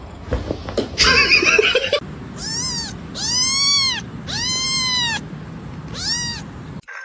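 Domestic cat meowing four times, each meow rising then falling in pitch, the middle two the longest. The meows follow a loud second-long burst of noise about a second in.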